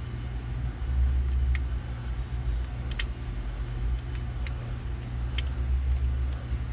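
Scattered light clicks and ticks as a snap-off knife blade and a plastic hard card work along the glass, trimming window film at the top edge of a sliding rear window. A steady low rumble runs underneath.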